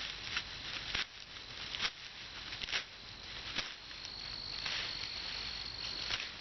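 Crickets chirring with a steady high pitch, stronger for a couple of seconds past the middle, over several sharp crackles of dry brush and twigs being handled.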